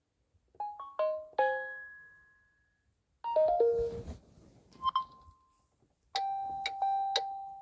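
Samsung Galaxy A36 5G phone speaker playing notification-sound previews one after another: a short run of bright chime notes that rings out, a quicker falling chime about three seconds in followed by a single ping, and near the end a held tone with repeated tapping notes.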